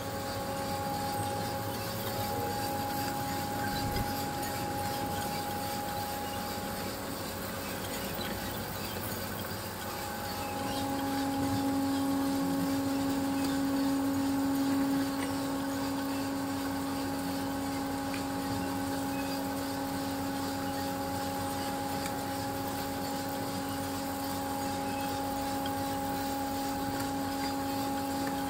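Coffee roasting machine running: a steady motor hum with a few fixed tones over an even rushing noise, the lowest tone growing louder about ten seconds in and holding.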